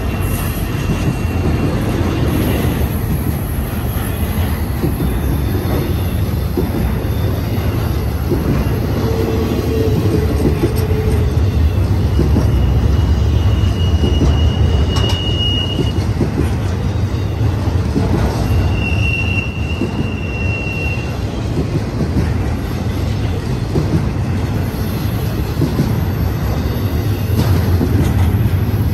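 BNSF intermodal freight cars rolling past on a curve: a steady heavy rumble of steel wheels on rail with light clatter. A short lower squeal comes about nine seconds in, then two high-pitched wheel squeals of two to three seconds each in the middle.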